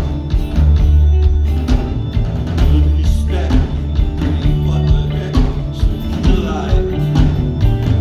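Live rock band playing an instrumental stretch through a PA: steady bass, drums and guitar at full volume.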